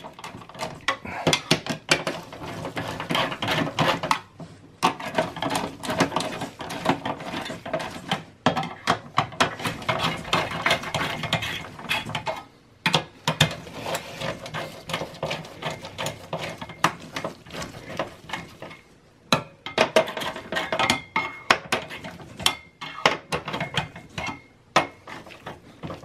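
Screwdriver tightening the screws of a CPU heatsink in a Dell Precision T5600 workstation: a dense run of quick metallic clicks and scrapes as the screws are driven, broken by a few short pauses.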